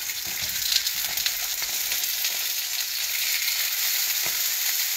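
Salmon fillets sizzling steadily in hot oil in a nonstick frying pan as they brown, with a few light taps of a slotted spatula as one fillet is turned.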